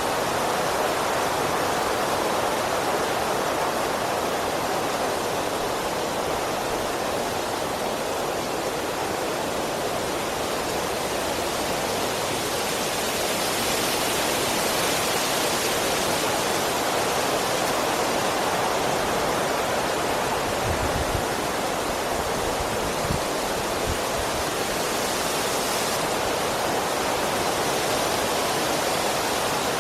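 Strong wind rushing steadily through the trees of a forest, a continuous roar of moving branches and leaves. There are a few brief low thumps about two-thirds of the way in.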